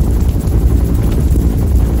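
Bell UH-1 Huey helicopter in flight, heard from inside the aircraft: its turbine engine and two-blade main rotor make a loud, steady low drone with a rapid, even beat, and wind buffets the microphone.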